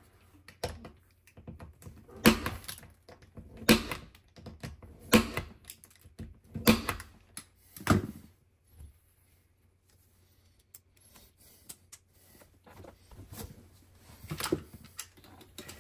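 Punch-down tool seating the wires of a Cat 5e cable into a keystone network jack: five sharp snaps about a second and a half apart, then a few lighter clicks near the end.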